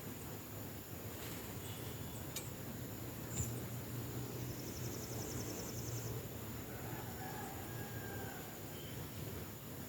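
Outdoor farm background with a distant rooster crowing faintly about seven seconds in, over a steady low hum. A few sharp clicks and a short fast high trill come earlier.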